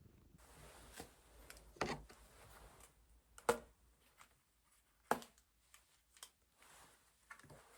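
Small objects being handled on a hard surface: a few sharp taps and clicks, three of them louder, with soft rustling between.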